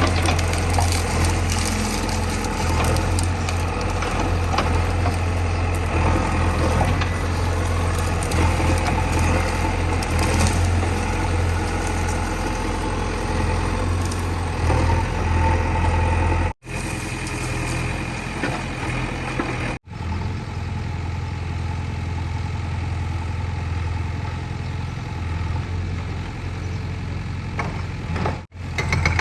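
JCB 3DX backhoe loader's diesel engine running steadily with a deep hum, mixed with the grinding and crunching of brickwork as the machine breaks up the tank. The sound cuts out for an instant three times.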